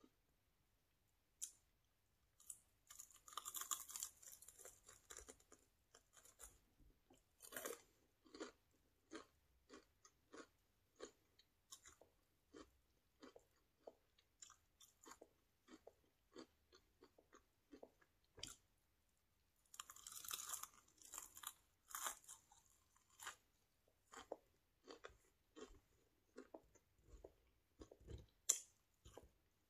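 Close-miked eating of a crunchy fried chicken wing with hummus. There are two bursts of crunching bites, about three seconds in and again around twenty seconds in, with steady chewing clicks between them.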